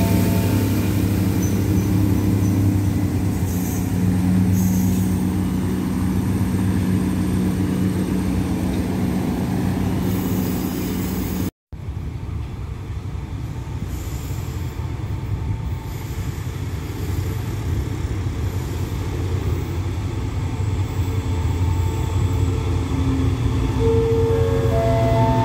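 Diesel passenger train standing at a station platform with its engines running, a steady low hum. After a break, an SRT QSY diesel-electric locomotive pulls a train in, its rumble growing louder, with a few short pitched squeals or tones in the last second or two.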